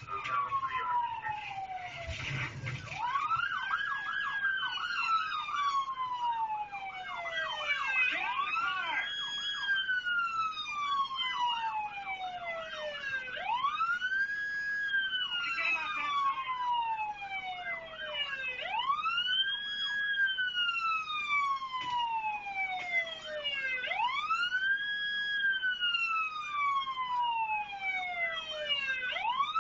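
Emergency-vehicle siren in wail mode: each cycle rises quickly, holds briefly, then falls slowly, repeating about every five seconds.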